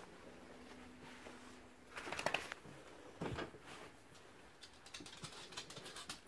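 A cat's brief meow about two seconds in, a dull thump just after, then a run of light clicking steps: a dog's claws on a hardwood floor.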